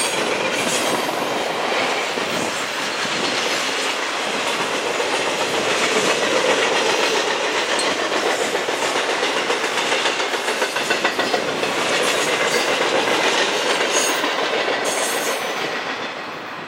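Railroad cars rolling past with a steady clickety-clack of wheels over the rail joints, fading away near the end.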